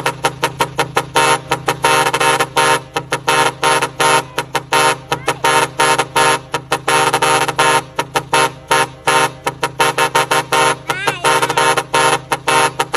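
A truck's multi-tone musical horn sounding rapid short blasts, several a second, in a quick rhythmic pattern of pitched notes. A steady low hum runs underneath.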